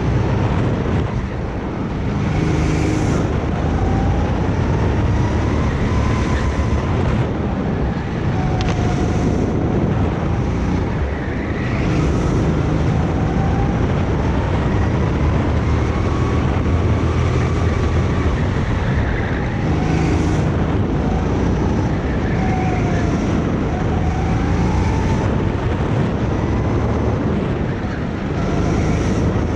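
Go-kart engine running hard with the revs rising and falling over and over, as on braking and accelerating through corners, with wind buffeting the microphone.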